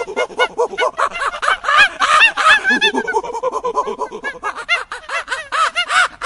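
A flock of birds calling all at once, many short overlapping calls, several a second.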